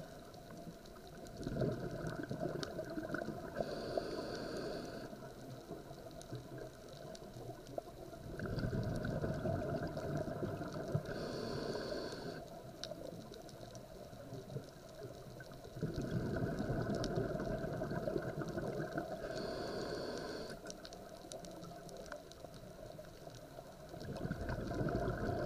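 Scuba diver's breathing heard underwater through the regulator: a long bubbling rush of exhaled air, then a short hiss of inhalation, repeating about every eight seconds, three times.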